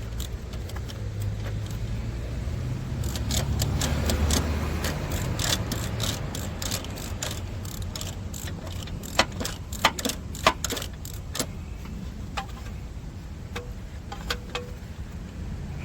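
Ratchet clicking in short irregular runs with metallic clinks of tools, as a seized upstream O2 sensor is worked out of the exhaust. A few louder metal knocks come in the middle, over a low rumble.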